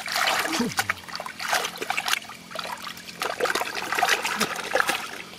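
Hands splashing and sloshing in shallow muddy water, churning the mud in irregular strokes while groping by hand for catfish.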